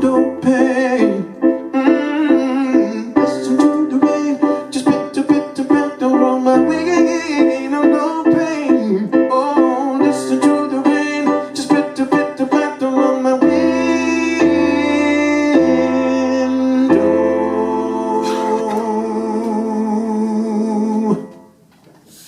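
Solo piano playing the closing bars of a slow song: a run of notes, then sustained chords, the last one held for several seconds before it stops near the end.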